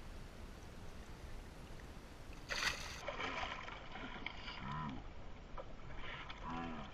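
A released snook kicks free of a hand at the waterline with one sharp splash about two and a half seconds in, followed by water sloshing and splashing against the boat's side, over a low steady rumble of wind on the microphone.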